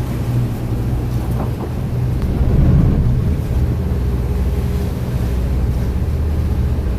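Engines of a Viking 42 Sport Tower yacht running with a steady low hum during joystick docking at low speed, swelling briefly about two and a half seconds in. Wind buffets the microphone.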